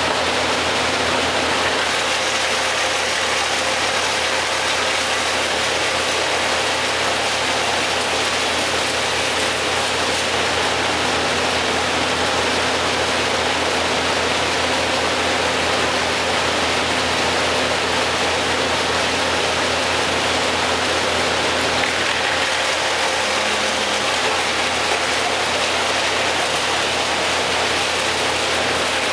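Large engine running steadily at a constant speed, a low hum under an even hiss.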